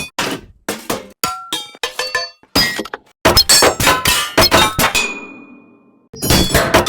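High-pitched metal banging: a quick run of sharp clanking strikes, each with a short ringing tone. The strikes come fast and dense midway, stop for about a second while one high ring dies away, then start again near the end.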